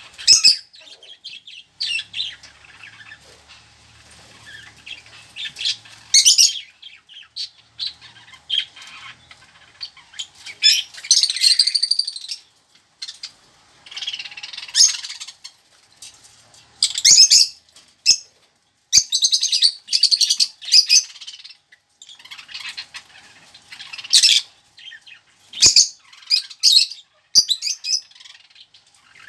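Pet lovebirds and budgerigars chirping and squawking in repeated short, high-pitched bursts with brief pauses between them.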